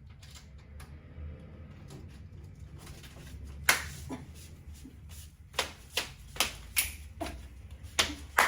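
A series of sharp, irregular knocks and clicks, about nine of them, starting about three and a half seconds in, over a steady low hum.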